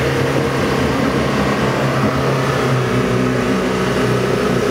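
Engine of a modified off-road 4x4 running at a steady speed while the vehicle, stuck leaning in mud, is being winched out.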